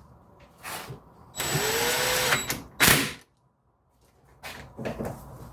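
Cordless drill/driver running a screw in for about a second, its whine rising then holding steady, followed by a single sharp knock.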